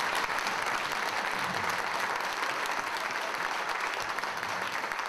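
An audience applauding: many hands clapping together in a steady patter.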